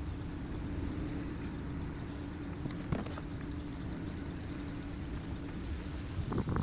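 1987 Ford F-150 engine idling steadily, running on its own without the key held forward now that a new ignition switch is in. A click about halfway and a few light knocks near the end.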